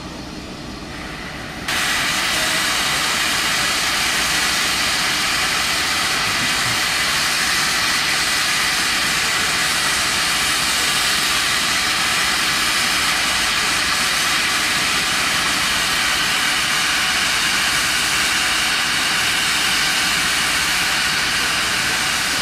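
Steam locomotive 3016 standing at the platform and venting steam: a loud, steady hiss starts suddenly about two seconds in and holds unbroken.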